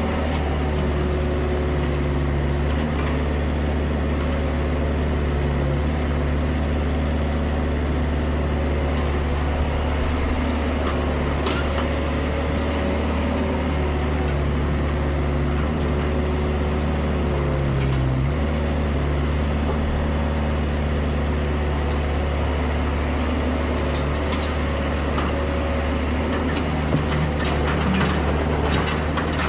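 Hydraulic excavator working: its diesel engine runs steadily under load, the pitch shifting a few times as the hydraulics take up work, with occasional knocks and clanks, more of them near the end.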